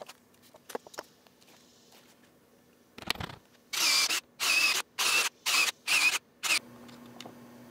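DeWalt cordless drill/driver run in about six short, loud trigger bursts, each a motor whine lasting under half a second, as it drives screws into a reclaimed oak blank. Light handling clicks come before the bursts, and a low steady hum comes after them.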